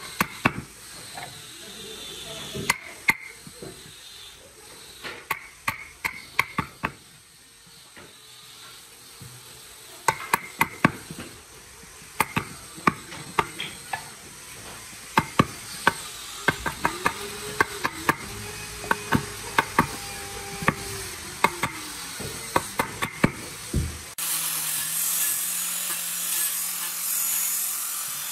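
Sharp hammer blows on a wood chisel, in short runs of several strikes, chopping a mortise into a hardwood block. About 24 seconds in this gives way to an angle grinder with a sanding disc running steadily.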